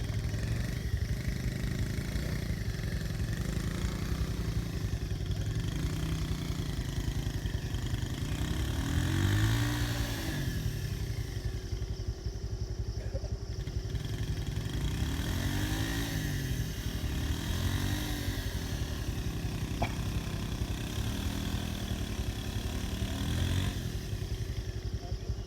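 Small motorbike engine running over a steady rumble, its pitch rising and falling several times as the throttle is opened and eased off.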